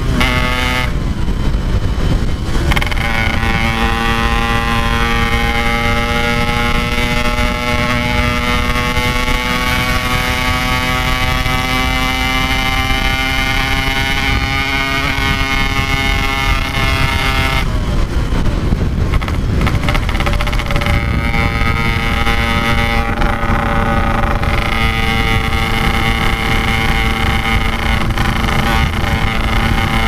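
Yamaha RX-King two-stroke single, fitted with a modified stock-style exhaust, running on the road, its note climbing slowly in pitch as the bike gathers speed. The engine note breaks off briefly about a second in and again just past halfway, then comes back. A steady low rush runs underneath.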